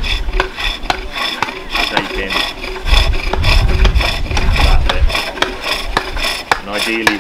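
Green-wood pole lathe bowl turning: a hook tool cutting the spinning wood in quick repeated rasping strokes, with a low rumble about three to five seconds in.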